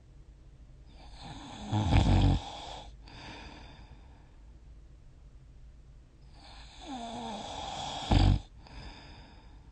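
A sleeping person snoring: two loud snores on the in-breath, about five and a half seconds apart. Each swells and ends in a brief, much louder low burst, and each is followed by a softer breath out.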